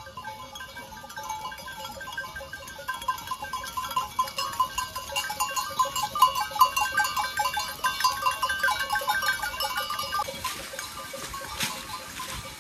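A herd of goats bleating as they pass over dry fallen leaves, loudest in the middle of the stretch.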